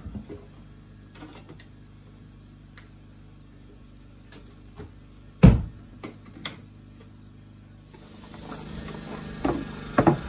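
Scattered light clicks and knocks of tools being handled and set down on an OSB countertop, with one loud knock about halfway through. Near the end a steady hiss of outdoor air comes in, with a couple more knocks.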